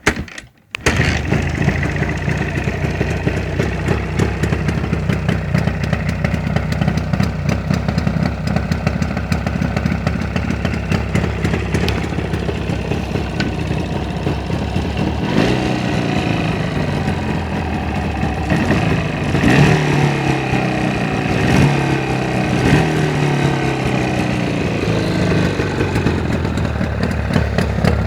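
Jawa 350/638 two-stroke twin engine starting up less than a second in and idling steadily. From about halfway it is revved several times, its pitch rising and falling, then it settles back to idle.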